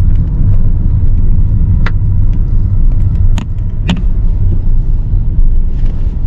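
Steady low rumble of a Hyundai Creta moving slowly, heard from inside the cabin, with three sharp clicks about two, three and a half and four seconds in.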